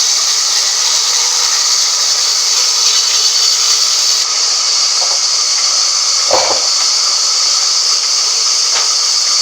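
A loud, steady hiss, with one short knock about six seconds in.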